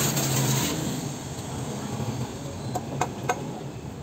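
Water hissing from a garden hose spraying a scooter's front wheel, dying away about a second in. Near the end come three quick, sharp clicks.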